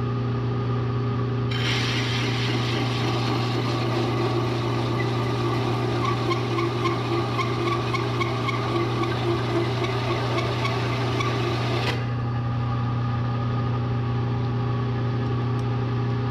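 Bridgeport milling machine running with a steady hum. From about a second and a half in until about twelve seconds, a cutter bites into steel plate with a grinding chatter. The cut then stops while the machine keeps running.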